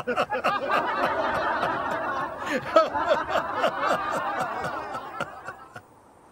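A crowd of people laughing together, many overlapping laughs that die away and fade out near the end.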